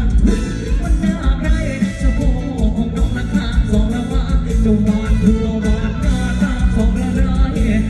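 Live band pop music played loud through a concert PA, with a heavy bass and a steady beat, and a male singer singing into a microphone over it.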